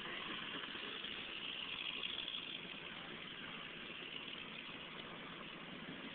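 B-25 Mitchell bomber's radial engines running steadily at low taxi power, a distant even drone with no distinct beat that swells slightly about two seconds in.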